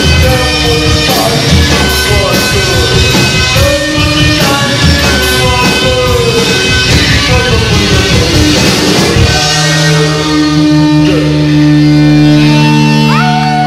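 Live rock band playing loud, with drum kit, guitar and some singing. About nine seconds in, the drumming stops and the band holds a ringing chord.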